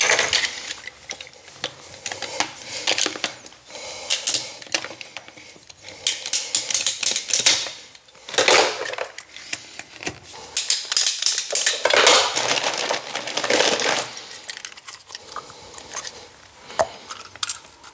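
Irregular clatter, clicks and scraping of plumbing fittings and tools being handled while sink pipes are reconnected, in uneven bursts with a few longer scraping stretches.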